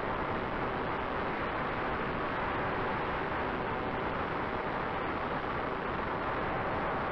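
Steady rush of airflow and propeller noise from an E-flite Air Tractor 1.5 m electric RC airplane in flight, picked up by a camera mounted on the model, with a faint steady motor whine underneath.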